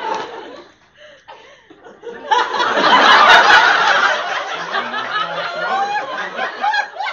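Audience laughing: a burst that fades within the first second, then a louder, longer wave of laughter starting about two seconds in and tailing off near the end.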